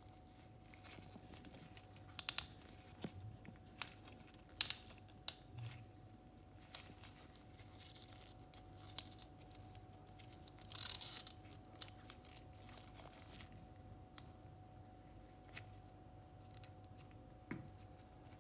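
Small plastic clicks, taps and scrapes from a 3D-printed Transformers figure's joints and parts being moved by hand, with a longer scraping rustle about eleven seconds in.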